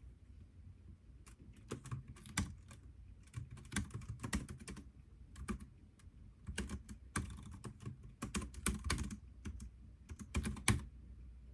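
Computer keyboard typing: quick runs of key clicks in bursts, with short pauses between them.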